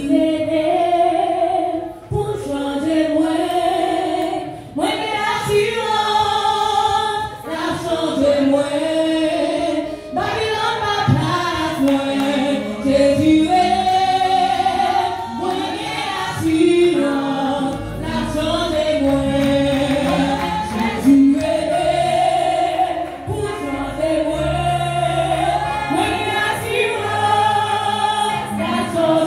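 A group of women singing a gospel worship song together into handheld microphones.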